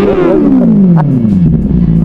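Benelli TNT 600i's inline-four engine revved on the throttle, its pitch falling back smoothly to a steady idle about a second and a half in, with a sharp click about a second in.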